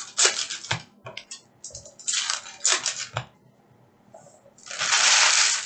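Foil hockey card pack wrappers crinkling and tearing open, with cards rustling and slapping as they are handled, in quick separate bursts. Near the end comes a longer, louder rustle lasting about a second.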